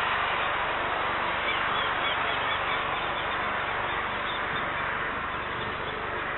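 Steady rushing noise from a distant Airbus A321neo's jet engines as the airliner turns and lines up on the runway. Small birds chirp faintly in the middle.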